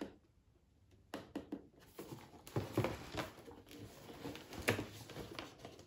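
Cardboard advent-calendar box being handled as a door is opened and a small candle taken out: irregular scratches, taps and rustles, starting after about a second of near quiet.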